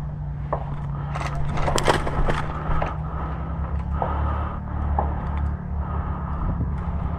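Scraping and rustling of an airsoft player moving with his gear, over a steady low hum, with a quick cluster of sharp clicks about a second in and a few single clicks later.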